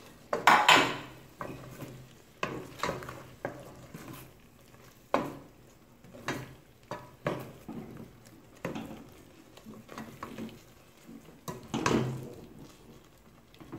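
Wooden spoon stirring chunks of chicken through a thick creamy cheese sauce in a pot: a series of short scraping strokes every second or so, the loudest about half a second in and again near the end.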